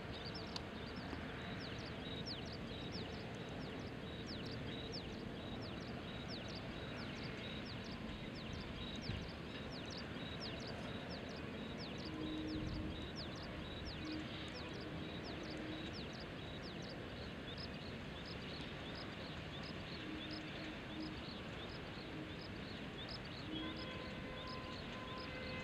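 Outdoor ambience: rapid, high-pitched chirping at several chirps a second over a steady hiss, with a faint low hum coming and going from about halfway through.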